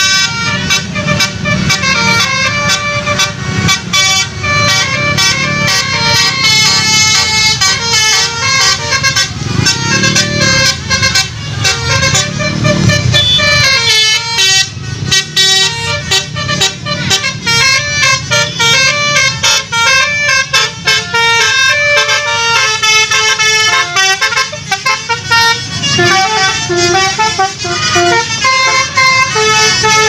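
Bus 'telolet basuri' musical air horn playing a quick melody of clear, changing notes, over a steady low rumble of engines.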